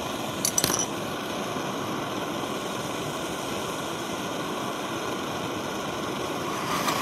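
Brass Optimus 8R white-gas stoves burning with a steady hiss, just brought up to running after an alcohol preheat. A few light metallic clicks come about half a second in.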